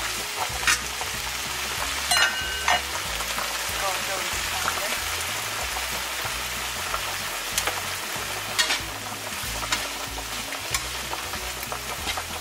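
Small shrimp sizzling as they stir-fry in a nonstick frying pan, with a metal spatula scraping the pan and a few sharp clinks, the loudest about two seconds in.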